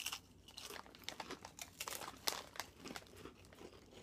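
Ridged potato chips being bitten and chewed, an irregular run of short, sharp crunches.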